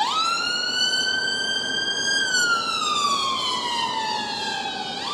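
Ambulance siren wailing as it passes. The pitch jumps up at the start, climbs slowly for about two seconds, falls slowly for nearly three, then jumps up again at the end.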